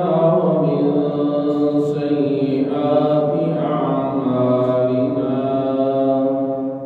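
A man's solo voice chanting a religious recitation in long, drawn-out melodic phrases, the phrase dying away near the end.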